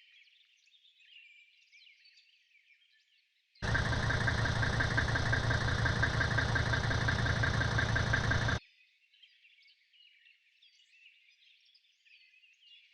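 A car engine running steadily and loudly for about five seconds, starting and stopping abruptly, with faint birdsong before and after.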